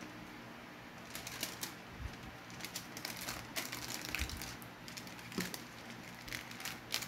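Aluminium foil crinkling in short, irregular crackles as it is folded by hand around a banana-leaf-wrapped fish, starting about a second in.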